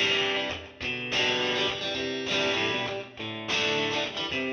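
Outro music: a guitar-led tune with strummed and plucked notes, dipping briefly between phrases about a second in and again past three seconds.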